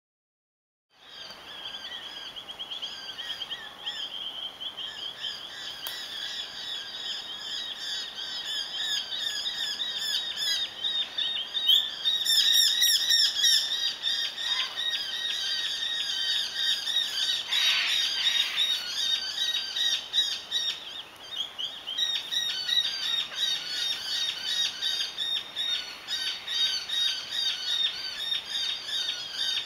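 A flock of many small birds calling continuously in dense, overlapping chirps, starting about a second in.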